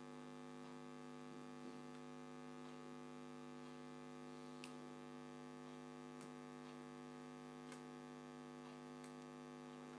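Faint, steady electrical mains hum, with a few faint light clicks here and there.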